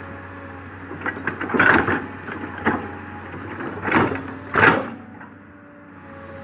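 Komatsu PC200 hydraulic excavator at work: its engine runs as a steady low hum under three short, loud noisy bursts in the middle.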